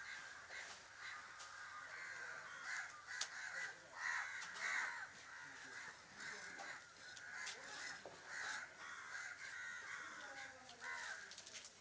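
Crows cawing over and over, many calls overlapping, with scattered faint sharp ticks.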